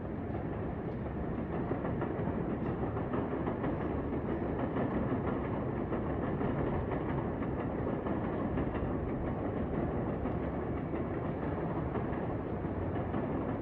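An electric train running on the tracks: a steady rumble of wheels on rail that swells slightly about two seconds in and then holds.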